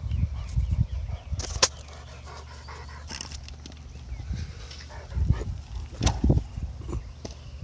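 Labrador retriever panting after running back with its ball, with a few sharp clicks and low thumping rumble over it.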